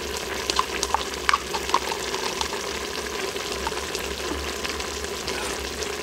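Adobo sauce with broccoli simmering and sizzling in an Instant Pot's stainless steel inner pot on the sauté setting, with many small bubbling pops, most of them in the first couple of seconds. A cornstarch slurry has just been added, and the sauce is starting to thicken.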